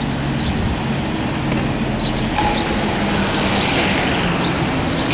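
Street traffic: vehicles and buses running past on a city road, heard as a steady rumble. A brighter hiss joins about three seconds in.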